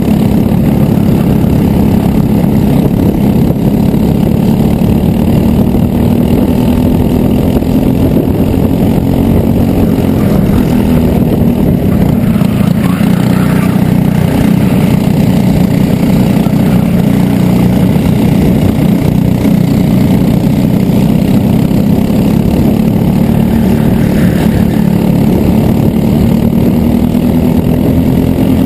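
Racing kart engine running hard at high revs, heard from on board the kart. Its pitch drops about halfway through as it slows for a corner, then climbs again, and dips and climbs once more near the end.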